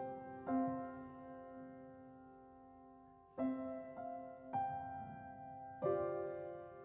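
Slow, soft piano music: chords struck a second or so apart, each left to ring and fade, with a long held chord in the first half.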